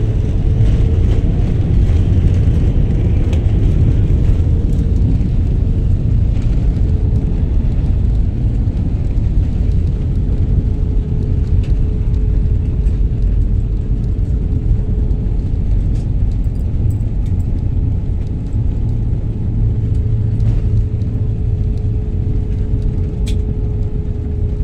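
Airliner cabin noise as the plane rolls along the runway after landing: a loud, steady low rumble from the wheels and engines, with a steady engine hum over it.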